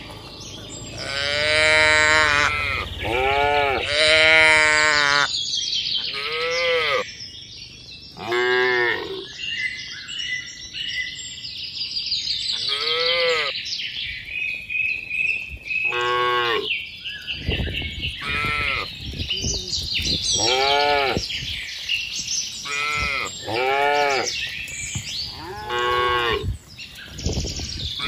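A herd of cattle mooing, about a dozen short calls one after another, each rising and then falling in pitch.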